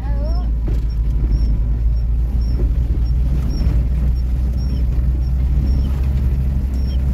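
Car driving on a dirt road, heard from inside the cabin: a steady low rumble of engine and road noise.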